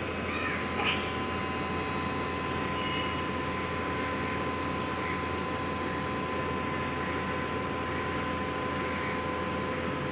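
Sany SR235C rotary drilling rig running steadily: an even hum with a fixed whine over it. A brief high squeak about a second in.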